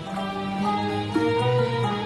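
Arabic instrumental ensemble playing a bashraf: the instruments play the same melody together (monophony) in an Arabic maqam, in held notes that step from pitch to pitch.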